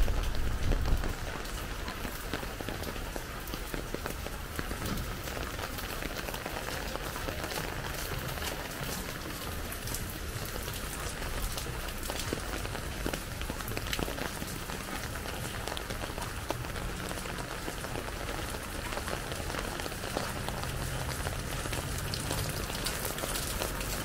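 Steady rain falling, a dense patter of drops on hard surfaces. A low rumble dies away about a second in.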